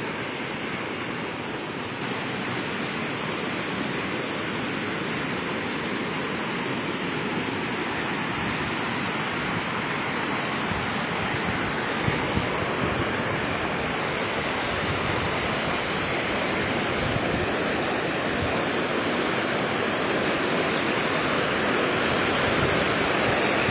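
Waterfall water rushing in a steady roar, growing gradually louder.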